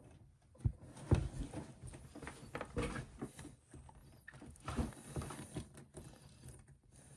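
Hard plastic action-figure parts and accessories being handled and fitted: irregular clicks, taps and soft knocks, with sharper knocks about half a second and a second in.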